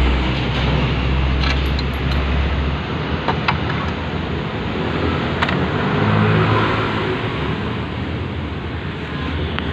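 Steady rushing background noise with a few light clicks and knocks as the CVT cover of a Yamaha Mio scooter is lifted off and the drive belt is handled. A low hum drops away about three seconds in.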